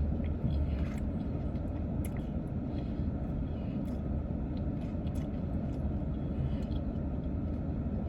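Steady low rumble inside a parked car, with its engine idling, and a few faint small clicks of eating and handling food.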